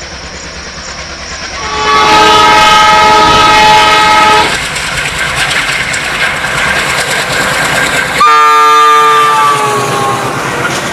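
Diesel locomotive's multi-tone horn sounding two long blasts, the second sagging slightly in pitch toward its end. Between the blasts the train rumbles over the rails.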